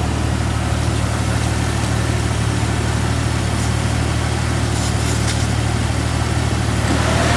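SmittyBilt 2781 portable 12-volt air compressor running steadily with an even drone as it pumps up a 37-inch off-road tire, partway through the fill, with a vehicle engine idling alongside.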